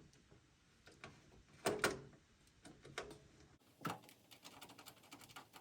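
Screwdriver driving a motherboard screw into a case standoff: scattered light clicks and ticks, with a louder knock about two seconds in and another about four seconds in.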